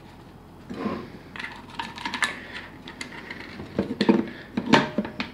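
An airsoft M4's stock being handled and slid onto its buffer tube: a run of hard clicks, knocks and scrapes, the loudest knocks about four seconds in and again near the end.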